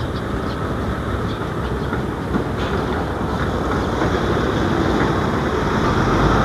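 Strong gusty wind buffeting the microphone: a steady rushing rumble that builds a little louder toward the end.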